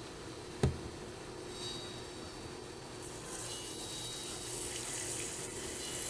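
A single knock, then from about three seconds in a soft hiss of water being poured into a glass jar of chia seeds, to soak them for sprouting.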